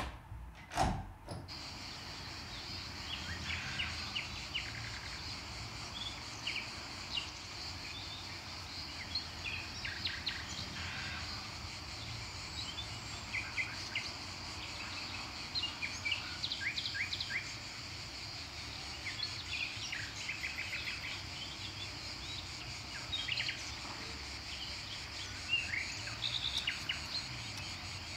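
Many small birds chirping, with short calls and little trills scattered over a steady outdoor background noise. In the first second a door latch clunks once or twice.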